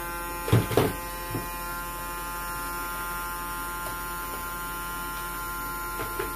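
Steady electrical hum with a high whine from a homemade generator circuit driving a small DC motor, which is spinning. Two sharp knocks about half a second in and a softer one shortly after, then faint clicks near the end, as parts on the bench are handled.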